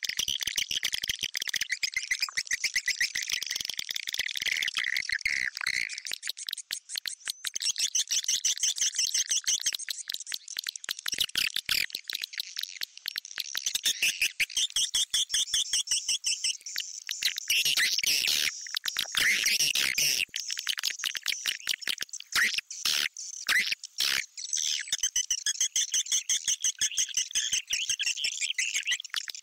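Swiftlet call recording used as a lure for swiftlet houses: a dense stream of rapid, high-pitched chittering chirps, briefly thinning about a quarter of the way in and growing louder past the middle.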